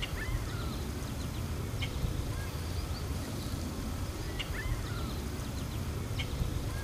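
Wetland birds calling: short, repeated chirps about once a second, over a steady low rumble.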